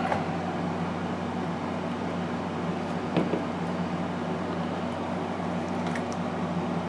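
Steady low electrical hum, like a room fan or air conditioner running, with one small sharp click about three seconds in and a fainter one near the end.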